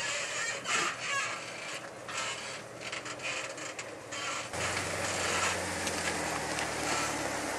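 Jeep Wrangler JK crawling over rocks: tyres crunching and scraping on stone, with irregular mechanical clicks and creaks from the drivetrain and suspension. About halfway through, the engine becomes clearly heard, running slowly and steadily.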